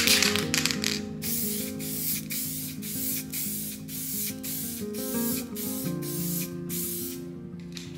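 Aerosol spray paint can hissing in a quick series of short bursts as paint is sprayed onto a bicycle frame, stopping shortly before the end. Background music with guitar-like notes plays underneath.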